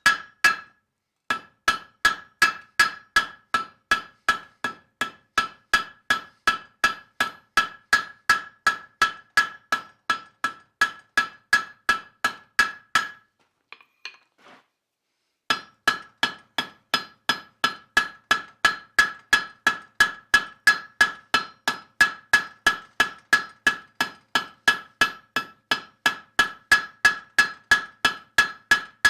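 Blacksmith's hammer striking hot steel on an anvil in a steady rhythm of about three blows a second, each blow ringing, as leaves are forged. The hammering stops for about two seconds in the middle, with a faint clink or two, then resumes.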